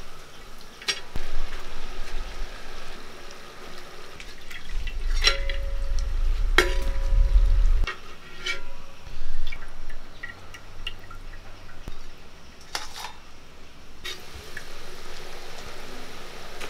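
Murukku deep-frying in hot oil in a steel wok, the oil sizzling steadily, with a steel slotted skimmer clinking against the pan several times as the coil is turned. A low rumble runs for a few seconds in the middle.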